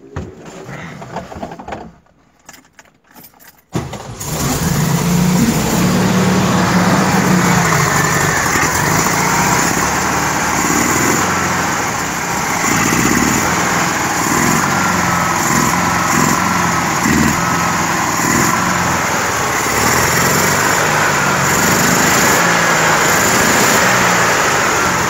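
1972 Volkswagen Variant's air-cooled flat-four engine with twin Solex carburettors catching about four seconds in, then running fast and steady. It runs at a raised idle because the throttle stop screws have been turned well up; it will not idle lower, which the mechanic puts down to clogged idle and progression circuits.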